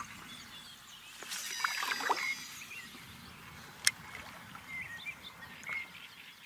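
Water lapping around a belly boat, with a short splashy rush a little over a second in and one sharp click near four seconds. Small birds chirp briefly near the end.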